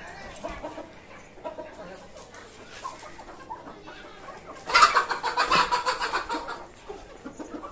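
A flock of domestic chickens clucking softly while they peck for grain. A little past halfway a loud burst of squawking and wing flapping breaks out for about two seconds as two birds scuffle, then the flock settles back to low clucking.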